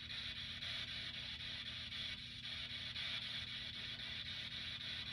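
Steady low hum with a constant high hiss and no distinct events.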